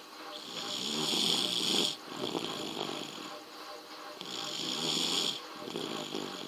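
Sleeping baby snoring in slow, regular breaths, one about every three and a half seconds. Each snore is a hissy, rasping breath of a second or more that cuts off sharply: one ends about two seconds in, and the next runs from about four seconds to five and a half.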